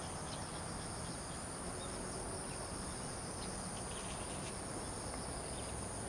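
Steady high-pitched insect trill, unbroken, over a low, even rumble of outdoor ambience, with scattered faint ticks.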